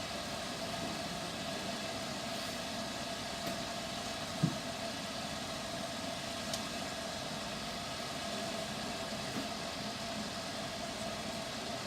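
Hood hairdryer running steadily: an even rush of blown air under a constant motor hum. One short soft knock about four and a half seconds in, and a faint click a couple of seconds later.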